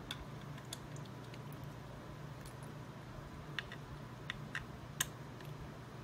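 Small screwdriver turning tiny screws that fasten a graphics card's circuit board to its water block: scattered light clicks and ticks of the tool and screws, the sharpest about five seconds in, over a low steady hum.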